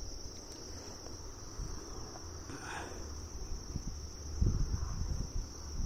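Steady high-pitched insect chorus of crickets, one unbroken tone, with low rumbling noise coming in about two-thirds of the way through.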